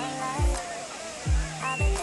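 Background music: a pop track with a deep kick drum on a steady beat, held bass notes and a bending melodic line over them.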